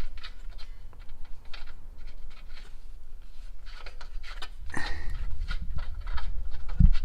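Scrapes and small metallic clicks of a wrench and hands working an O2 sensor loose from a motorcycle exhaust pipe, with a louder scrape about five seconds in and a dull thump near the end.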